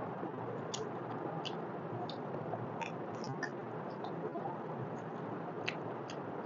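Close-miked eating of mutton trotters by hand: chewing and biting with scattered wet mouth clicks and smacks, over a steady hiss.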